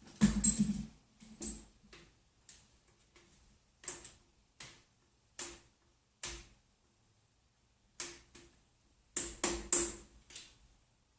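Metal hand tools and parts clanking and clicking while the engine is being taken out of a Yamaha Banshee quad: about a dozen short, sharp knocks at irregular intervals, each ringing briefly, with a dense cluster near the start and another near the end.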